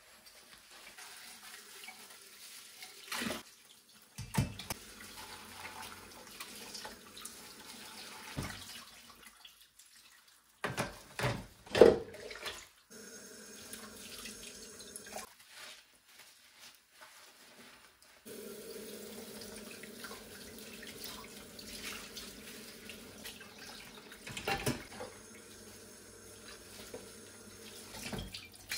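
Kitchen tap running into a sink in stretches, stopping and starting, with knocks and clinks of dishes being handled while they are washed; the sharpest knock comes about twelve seconds in.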